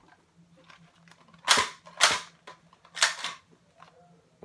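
Nerf Accustrike Quadrant dart blaster being worked by hand: three sharp plastic snaps, the second about half a second after the first and the third about a second later.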